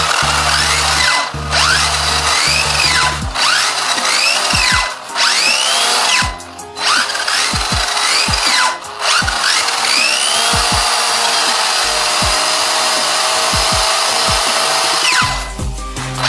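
A small handheld power tool running and cutting or grinding, stopping for brief moments several times, over background music.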